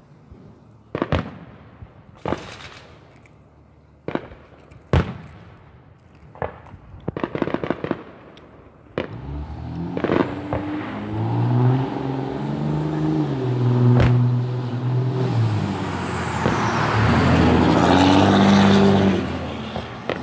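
Distant aerial fireworks bursting: several separate sharp bangs, with a quick crackling cluster around seven seconds in. About nine seconds in, a loud engine comes in close by with a steady hum and drowns out the fireworks.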